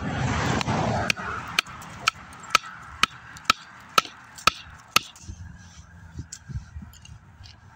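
A wooden baton striking the spine of a Mora Garberg carbon-steel knife to split a stick on a stump: a steady run of sharp wooden knocks, about two a second, stopping about five seconds in.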